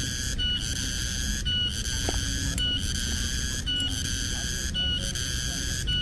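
Cicadas droning in a steady pulsing rhythm. The buzz breaks off briefly about once a second, with a short high note at each break. A steady low rumble lies underneath.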